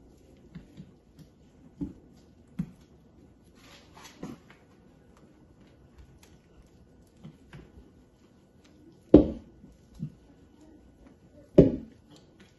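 Wooden spoon and a small metal pot knocking against a large stainless steel mixing bowl while egg mixture is poured in and stirred: scattered light knocks, then two heavy clunks near the end.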